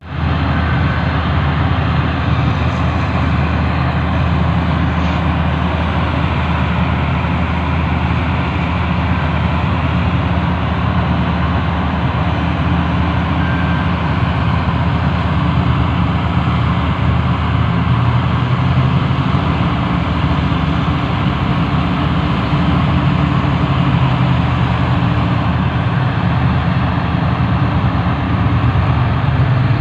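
Diesel engine of a Sumitomo SH350 hydraulic excavator running steadily, a deep, even engine note.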